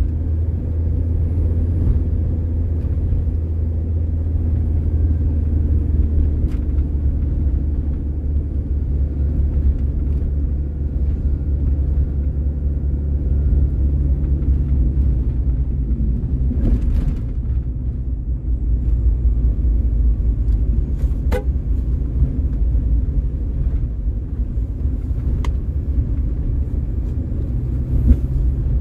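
Car driving along a road: a steady low engine and road rumble, with a few short clicks midway.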